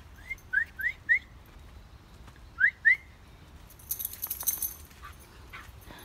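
A dog giving short rising whimpers: four quick ones, then two more a second and a half later. A brief rustle of leaves and twigs follows about four seconds in.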